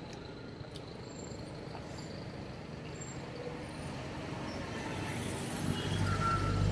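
Night street traffic: a motor vehicle's engine draws closer and grows louder toward the end, over a steady background of city noise.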